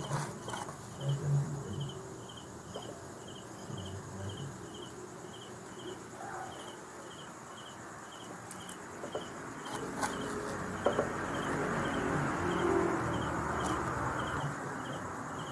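An insect chirping steadily, a short high chirp about twice a second. From about ten seconds in there is soft rattling and rustling of crushed stones being poured from a piece of cardboard into a plastic tub, with a few clicks.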